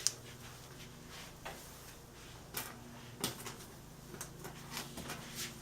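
Hands working clip-in hair extensions: a scattering of small sharp clicks and rustles as the weft clips are snapped shut and the hair is handled, over a faint steady hum.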